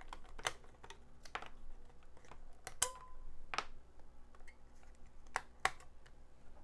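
Sharp clicks and taps of a hard plastic LED flashlight housing and its batteries being handled as the batteries are taken out, about six separate clicks, one near the middle followed by a brief ring.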